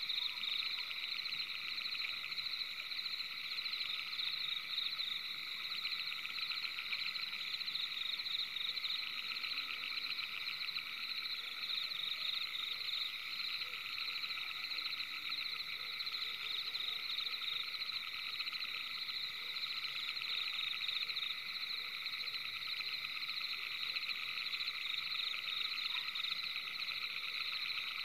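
Steady night chorus of calling frogs: a dense, rapid trilling that goes on without a break.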